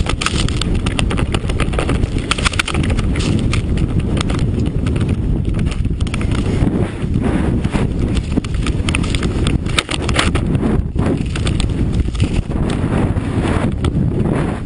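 Snowmobile running while riding through snow, its engine and track noise mixed with wind buffeting the microphone and frequent short knocks from the ride.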